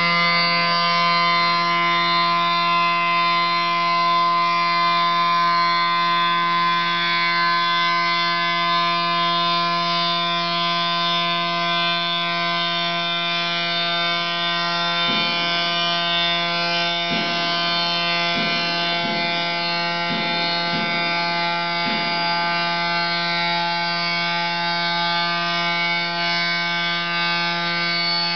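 Electric spindle of a CNC stone machining center running at constant speed with a steady, pitched whine while its water-cooled tool cuts the edge of a round cutout in a stone slab. A few faint knocks come in about halfway through.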